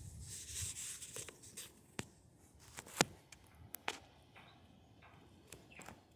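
Scattered sharp clicks and knocks, the loudest about three seconds in, after a short hissing rustle in the first second: small handling noises aboard a small boat.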